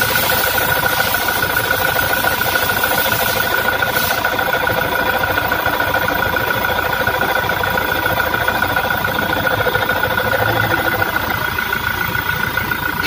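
Toyota Fortuner VRZ diesel engine running at idle with a steady, rough whirring noise from the alternator area, which the mechanic says is usually the alternator.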